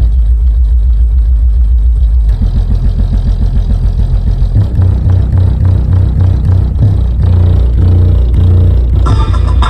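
Hertz SPL Show 12-inch car subwoofers playing bass-heavy music very loud: deep held bass notes at first, then a fast pulsing bass line from about two seconds in, with brighter sounds joining near the end.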